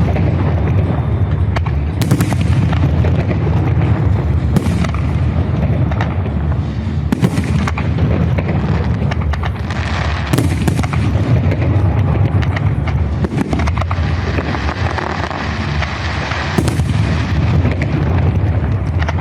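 Fireworks salute: several loud shell bursts a few seconds apart over a constant low rumble and crackle.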